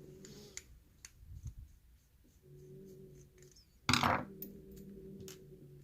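A challenge lock and its parts being handled: scattered small metallic clicks and taps, with one louder knock about four seconds in.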